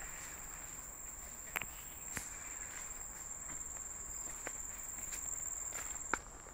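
A steady high-pitched insect trill, with footsteps on a dirt path strewn with dry leaves and a few sharp crackles underfoot.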